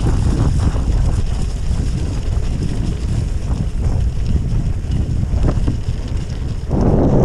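Wind buffeting the microphone over the rumble of a Trek Checkpoint SL5 gravel bike's tyres rolling on wet gravel and slush. The noise gets suddenly louder and rougher about a second before the end.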